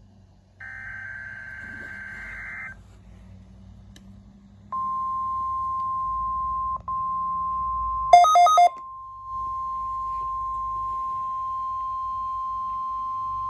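NOAA Weather Radio test signalling: a two-second burst of SAME data screech, then the steady 1050 Hz weather radio warning alarm tone held for about nine seconds. The tone drops out briefly once, and three quick beeps cut across it about eight seconds in.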